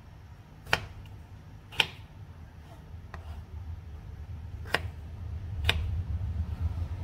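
Kitchen knife cutting a peeled potato on a plastic cutting board: four sharp knocks as the blade goes through and strikes the board, in two pairs about a second apart. A low hum underneath grows louder in the second half.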